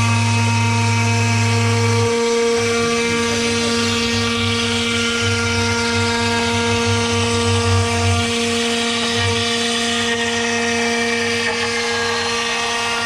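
CNC router spindle running with a steady whine as it moves over and mills a plywood sheet, with a hiss of cutting swelling about midway.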